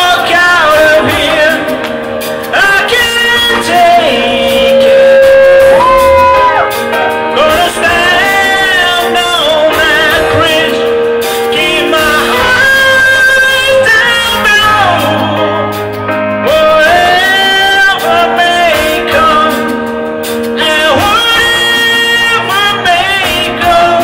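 A live band playing a song, with a man singing lead over electric bass guitar and drums, his voice holding long, sliding notes.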